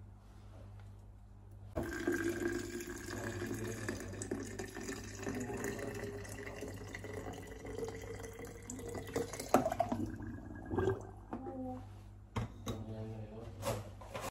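Iced tea poured from an upturned glass bottle into a glass carafe full of fruit: a continuous rush of liquid whose pitch climbs slowly as the carafe fills. Near the end a few sharp clinks and knocks of glass.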